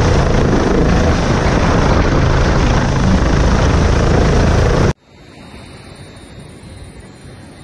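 Low-flying helicopter's rotor and engine noise with wind rush, loud and steady, cutting off abruptly about five seconds in. A much quieter faint background noise follows.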